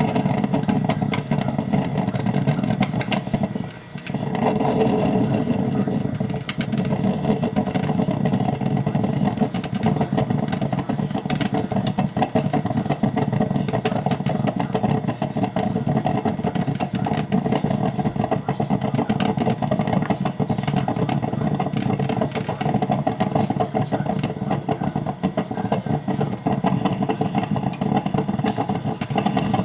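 Black & Decker thermal carafe drip coffee maker brewing: a steady sputtering noise with frequent small pops as the heater pushes water through.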